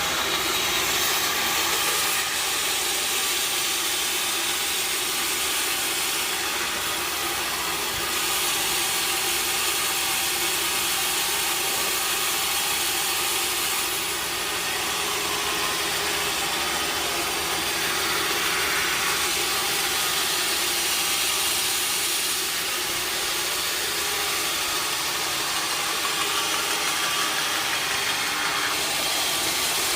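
Sawmill machinery running steadily, a continuous hissing mechanical noise with no breaks.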